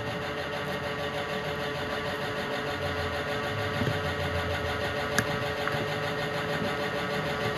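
Small battery-powered motor in the base of an acrylic wobbling standee, running with a steady buzz while it rocks the figure; a small click or two about five seconds in.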